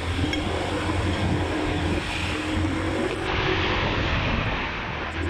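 Motorbike engine running steadily while riding along, heard from the bike itself, with a steady low hum under a haze of road noise.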